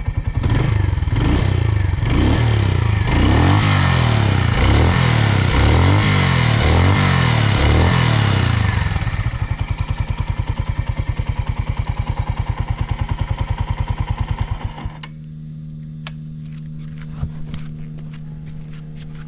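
Suzuki Volty's 250 cc air-cooled single-cylinder engine blipped up and down in a series of quick revs, settling back to a steady idle, then switched off about 15 seconds in. After it stops, a steady low hum and a few light clicks remain.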